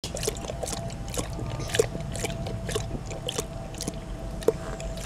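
Newfoundland dog lapping water from a stainless steel bowl, a steady rhythm of about two wet laps a second.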